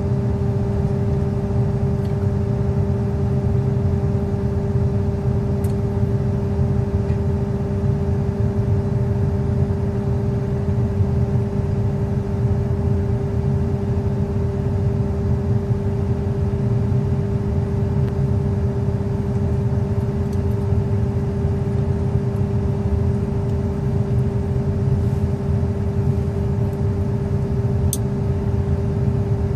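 Excavator's diesel engine running at a steady speed: a constant low hum with an unchanging tone.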